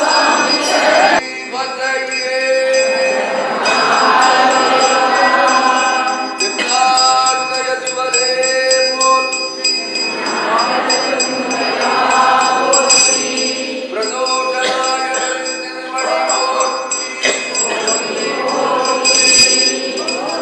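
Devotional music with a bell ringing steadily over it. The sound breaks off and changes abruptly several times.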